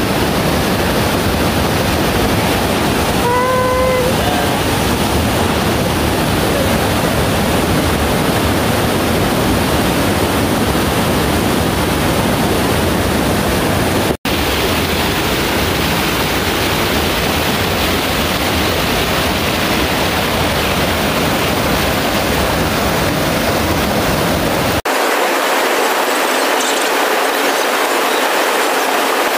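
Steady, loud roar of a waterfall. It breaks off for an instant twice, and after the second break, near the end, the deep rumble drops away and only the higher rush remains.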